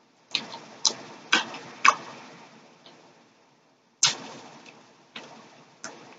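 Close-up mouth sounds of chewing sugar-coated peach gummy rings: sharp wet smacks and clicks, four about half a second apart, then three more after a short pause.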